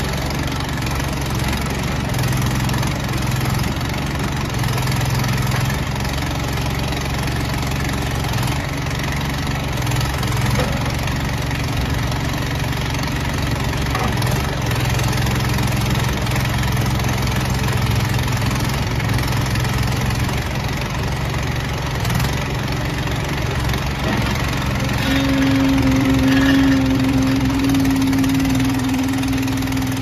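Terramite T5C backhoe's 20 hp Kohler gas engine running steadily as the backhoe is worked. Near the end a steady hydraulic whine comes in and the engine gets a little louder under the load.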